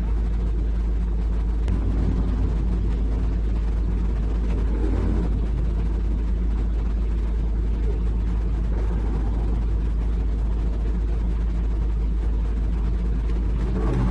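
A heavy diesel engine running steadily with a deep, continuous rumble.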